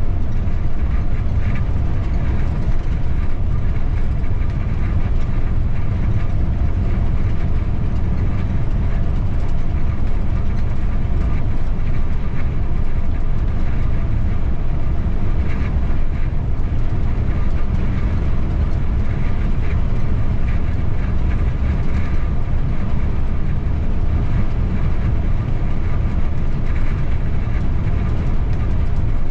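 City bus driving, heard from the driver's cab: a steady low rumble of engine and road noise, with a few faint ticks and rattles.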